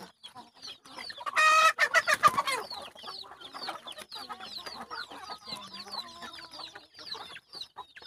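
A flock of chickens clucking and calling while feeding, with one loud call about a second and a half in and many short high chirps scattered throughout.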